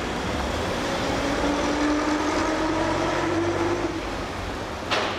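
Vintage single-deck bus driving past, its running sound carrying a whine that rises slowly in pitch over about three seconds. A single sharp click comes near the end.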